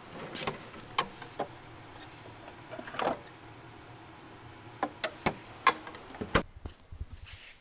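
A mini fridge being opened and a can of sparkling water pulled from among the other cans inside: a run of clicks, knocks and aluminium-can clinks, the loudest about three seconds in.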